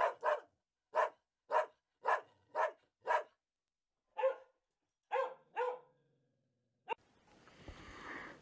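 German Shepherd dog barking: a run of single barks about two a second, a short pause, then three more barks. A fainter breathy rushing sound rises near the end.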